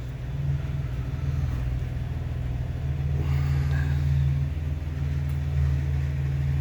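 Vehicle engine running steadily, a low even hum with no revving.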